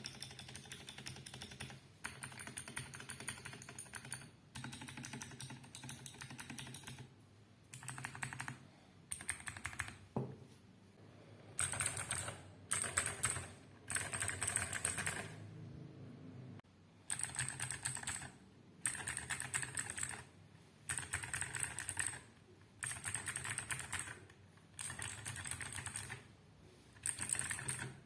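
Fast typing on a Vortexseries VX8 mechanical keyboard with clicky blue switches, in bursts of rapid keystrokes about a second long with short pauses between them.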